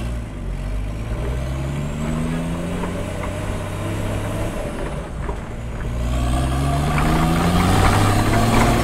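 BMW 525tds turbo-diesel straight-six accelerating, its revs climbing through a gear. It drops back briefly at a gear change about five seconds in, then climbs again, louder, with a high turbo induction whistle rising along with it. Heard from inside the cabin.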